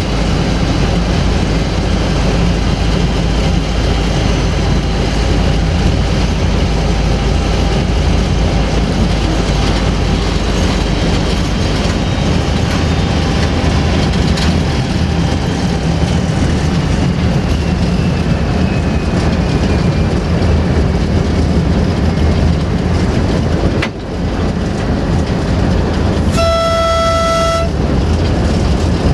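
Steady loud drone of a CFR 060-DA (LDE2100) diesel-electric locomotive's Sulzer diesel engine and running gear, heard from inside the cab. Near the end the locomotive's horn gives one single-pitched blast of about a second.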